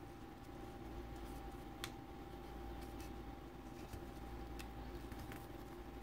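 Faint handling and creasing of printer paper being folded by hand, with a few soft sharp ticks, the clearest about two seconds in and another past the middle, over a steady faint hum.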